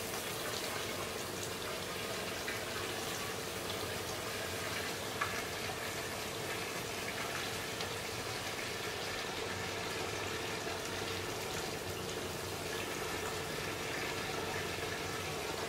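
12,000-volt electrical discharge from a high-voltage transformer's copper electrodes, sizzling and crackling steadily as it burns a Lichtenberg figure into electrolyte-soaked wood. A faint steady hum lies underneath, and there is one sharper crack about five seconds in.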